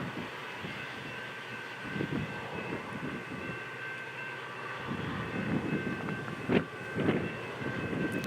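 Train running, a steady high whine of several tones over an uneven low rumble, with a sharp knock about six and a half seconds in.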